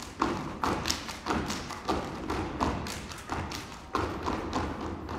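Step team stepping in unison on a stage: a steady rhythm of sharp stomps and slaps, about three beats a second.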